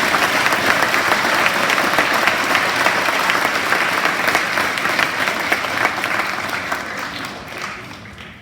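An assembly audience applauding, a dense clapping that holds steady for several seconds and then fades away over the last two seconds.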